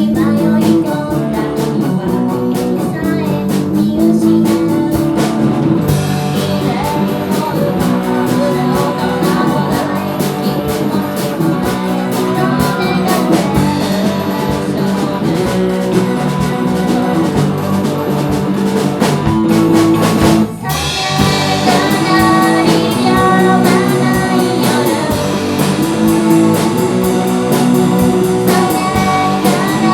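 A band playing live: guitar and drums with a sung vocal, dense and loud throughout, with a momentary break in the sound about two-thirds of the way through.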